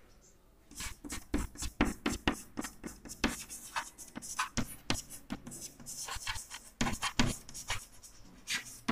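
Chalk writing on a blackboard: a quick, irregular run of taps and short scratches as letters are chalked, starting about a second in.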